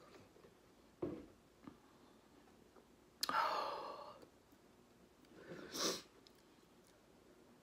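A woman breathing hard through her mouth against the burn of very spicy noodles. There is a short breath about a second in, a loud open-mouthed huff a little after three seconds, and a second breath that builds up and stops near six seconds.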